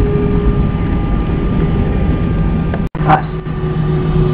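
Cabin noise of an Airbus A320 slowing down on the runway just after touchdown: the engines and the rolling rumble of the airframe run steadily. About three seconds in the sound breaks off for an instant and comes back as a steadier, slightly quieter hum.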